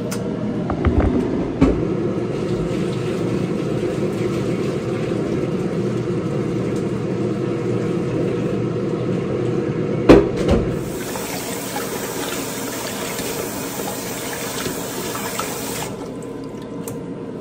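Water running from a kitchen tap into the sink, a steady rush. About ten seconds in there is a knock, and the water turns to a brighter hiss for about five seconds before it cuts off.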